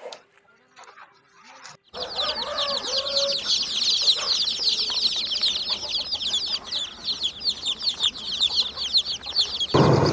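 Chickens: after a brief quiet, a dense run of many rapid, high chirping calls, with a few lower clucking calls near their start.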